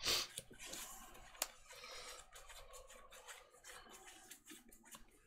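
Faint rustling and sliding of Magic: The Gathering cards being handled and drawn. A brief brushing sound comes at the start and a single sharp click about a second and a half in.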